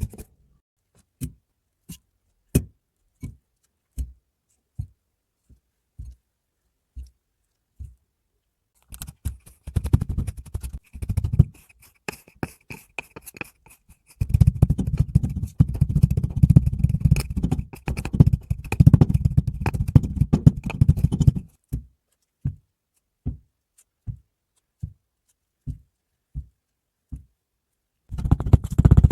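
Kinetic sand being handled, cut and squished: a string of short, evenly spaced soft taps, broken by two longer stretches of dense crackling about nine seconds in and again from about fourteen seconds.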